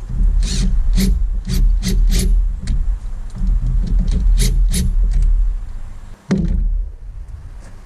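Repeated sharp knocks and clicks of parts being handled, over a steady low rumble that drops out for a moment about six seconds in and fades near the end.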